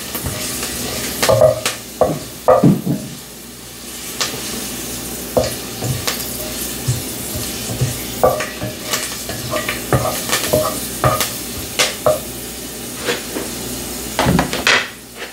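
Herbs sizzling in hot oil in a cooking pot as they are stirred around, the spoon clicking and knocking against the pot at irregular moments.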